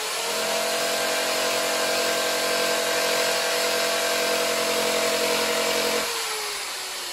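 Right-angle die grinder with an abrasive surface-conditioning disc running at speed and grinding paint and body filler off a steel wheel-arch lip, down to the metal to check for rust under a paint blister. About six seconds in the disc comes off the panel and the motor's pitch slowly falls.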